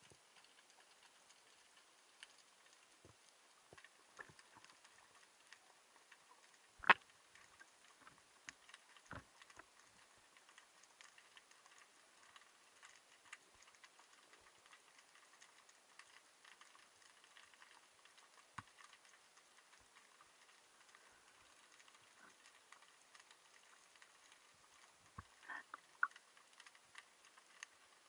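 Faint underwater ambience: a thin hiss with scattered sharp clicks and ticks, the loudest a single sharp click about seven seconds in and a few more close together near the end.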